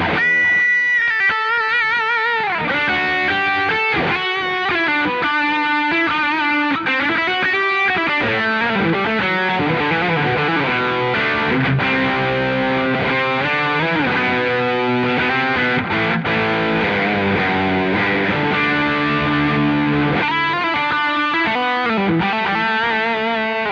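Semi-hollow electric guitar played with overdrive from a Wampler Pantheon pedal, through the AMT Pangaea CP100's speaker-cabinet simulation and recorded direct: a lead passage with wavering bent notes, then chords and single-note lines, fading out at the end.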